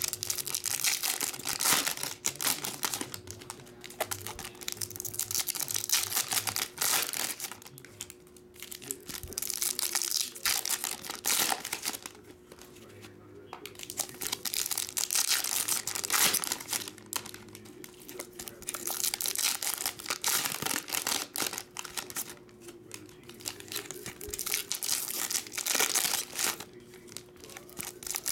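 Foil wrappers of Bowman Chrome baseball card packs crinkling as they are handled and opened by hand, in repeated spells with short pauses.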